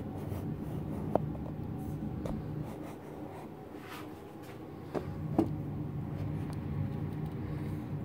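Steady low machine hum with several fixed tones, broken by a few light clicks about a second in and twice around five seconds in.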